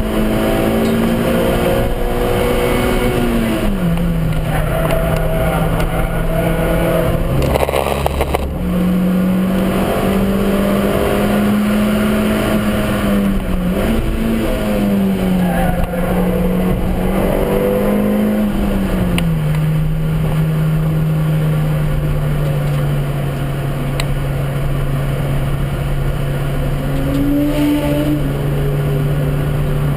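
Suzuki Swift Sport's four-cylinder engine running hard under load, heard from inside its stripped-out cabin along with road and wind noise. Its pitch steps down about four seconds in, climbs again after a brief jolt around eight seconds, and steps down once more near twenty seconds, then holds steady.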